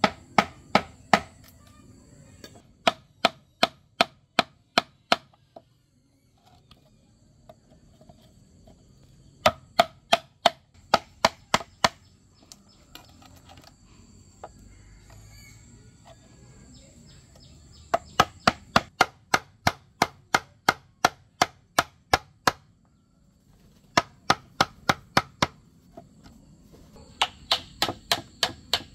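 Wooden mallet driving a chisel into green bamboo to cut holes: sharp knocks, about four a second, in runs of several seconds with short pauses between.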